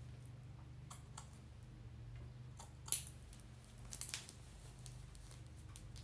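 Scissors snipping through the protective lace under a wig closure: a few short, sharp snips, the loudest about three seconds in and a quick cluster just after four seconds.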